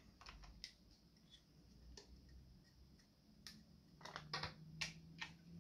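A handful of faint, scattered clicks and taps of hard plastic as an SJCAM SJ8 action camera is opened out of its waterproof housing and lifted free, with a small cluster of clicks a little over halfway through.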